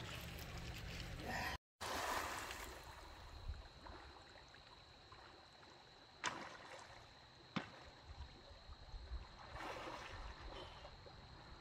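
Faint running river water, with two sharp clicks about six and seven and a half seconds in and a steady faint high tone behind.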